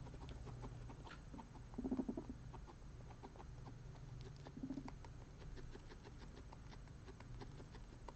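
Guinea pigs munching hay, a run of small crunching clicks, with a short low pulsing purr about two seconds in and a briefer one a few seconds later.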